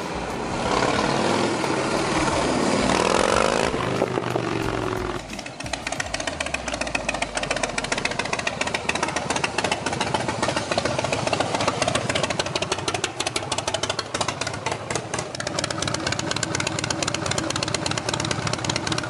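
Harley-Davidson Breakout V-twin running through a newly installed aftermarket exhaust. It is loudest in the first seconds, with its pitch falling about three seconds in, then drops about five seconds in to a lower, rapid, lumpy run of exhaust pulses at low revs.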